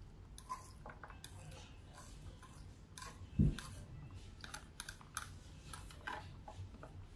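A white plastic fork clicking and scraping on a plate as rice and beans are scooped up, with quiet chewing between the scoops. A single low thump comes about three and a half seconds in.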